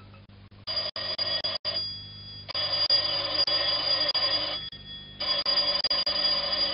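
Rotary-dial desk telephone's bell ringing: three long rings with short gaps between, starting about half a second in.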